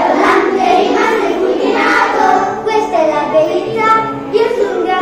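A child singing a song over a recorded backing track.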